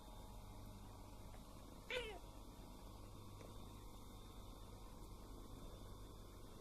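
A domestic cat gives one short meow, falling in pitch, about two seconds in, over a faint steady low hum.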